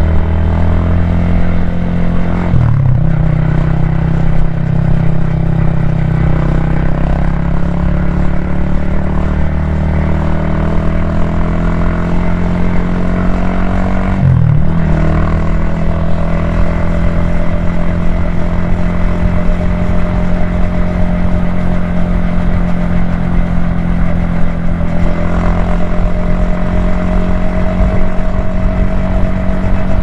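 Yamaha XSR155's single-cylinder engine and exhaust running as the motorcycle rides along, heard from the rider's helmet. The engine note breaks briefly twice, a few seconds in and about halfway through, then its pitch climbs slowly as the bike picks up speed.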